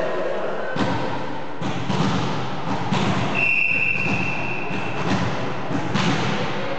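A referee's whistle blown once, held for about a second and a half, in the middle of scattered thuds and knocks echoing in a sports hall.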